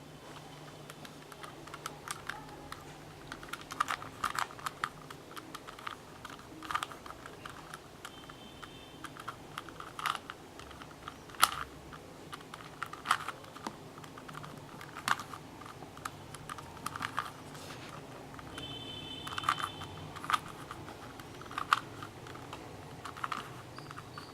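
Plastic clicks and clacks of a 3x3 Rubik's Cube's layers being turned by hand, coming in irregular clusters of sharp clicks with short pauses between.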